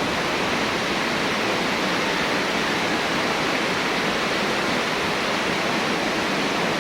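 Steady rushing water: an even, unbroken rush that holds at the same level throughout.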